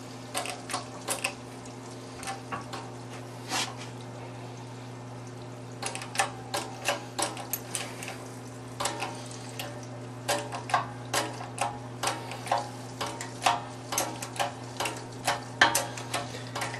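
A press working an AK rifle barrel back into its trunnion. It gives sharp metallic clicks and ticks, a few scattered at first, then two or three a second from about six seconds in. A steady low hum runs under them.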